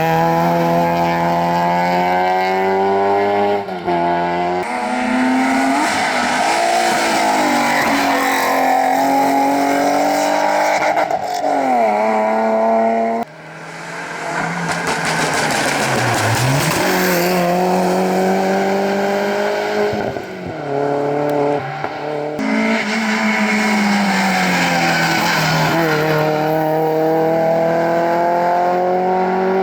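Rally car engines at full throttle, revving up through the gears, with the pitch climbing and then dropping back at each gearshift. Several separate passes are cut together, and one breaks off suddenly about halfway through.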